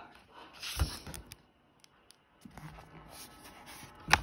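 Glossy pages of an album photobook being handled and turned: rustling and scraping of paper, with a soft thump about a second in. A sharp tap near the end is the loudest sound.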